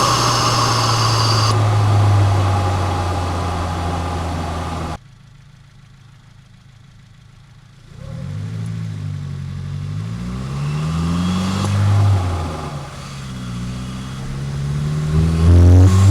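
The tuned 2022 Subaru WRX's turbocharged 2.4-litre flat-four runs through its BMS intake, holding a steady note and then cutting off abruptly about five seconds in. After a short lull it comes back, rising and falling in pitch as it revs, and climbs again near the end.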